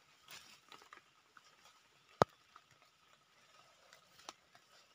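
Faint rustling and scraping in dry leaf litter as a hand and knife dig out and pick an egg-stage wild mushroom, with one sharp click about two seconds in.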